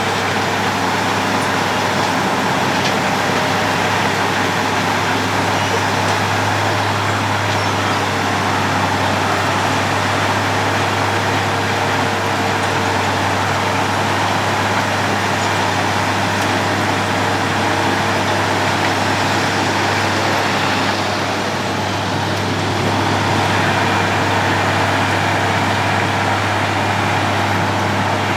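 Road planer (cold milling machine) running steadily, a constant low engine hum under a dense grinding-type noise, briefly easing a little past the middle before picking up again.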